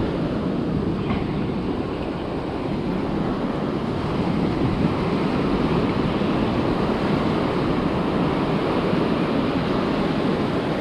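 Ocean surf breaking and washing up the beach, with wind rushing on the microphone: a steady roar that grows a little louder after a few seconds.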